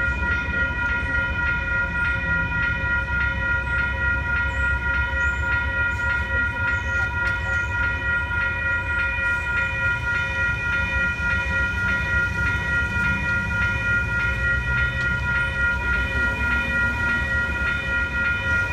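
Railroad grade-crossing electronic bells ringing in a fast, even rhythm, each stroke the same clear ringing tone, with a low rumble underneath.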